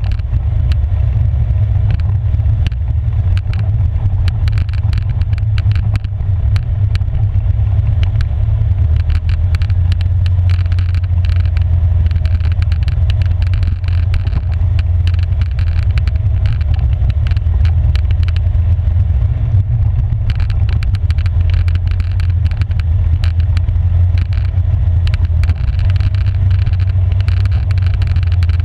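Polaris 570 EPS ATV's single-cylinder engine running steadily at trail speed, with a heavy low rumble and a constant scatter of small clicks and knocks from the tyres on the gravel trail.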